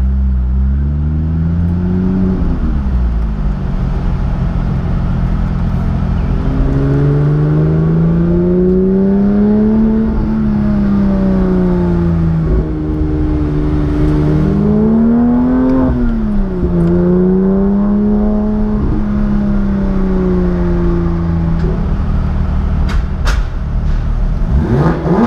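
Car engine and road rumble heard from inside the cabin while driving, the engine note rising as it accelerates and falling back several times, with a sharp rev near the end.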